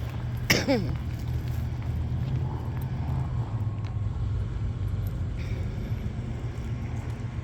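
A big truck passing on the street, its engine giving a steady low rumble. About half a second in there is one short, sharp sound that falls quickly in pitch.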